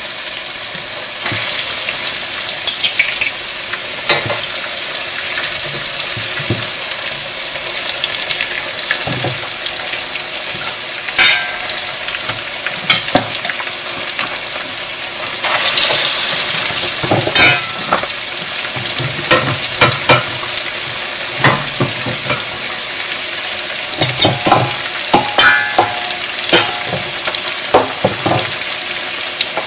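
Breaded chicken pieces deep-frying in hot oil, a steady crackling sizzle that swells louder for a second or two about halfway through. Now and then a metal utensil clinks against a metal bowl.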